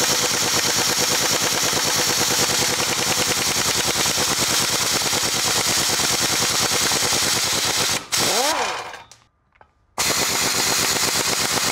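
Pneumatic impact wrench hammering rapidly, loosening the bolts of a driveshaft flex disc. It cuts out just after eight seconds in, falls quiet for about two seconds, then hammers again.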